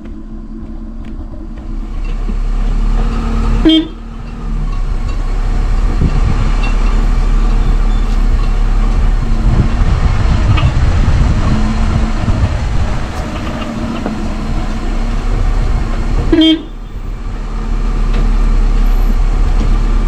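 Car engine running while driving slowly on a dirt road through a herd of cattle, with two short horn toots, about 4 seconds in and near the end.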